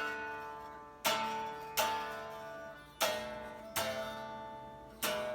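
Guitar strummed in chords, a sharp strum in pairs roughly every second, each chord left to ring and fade.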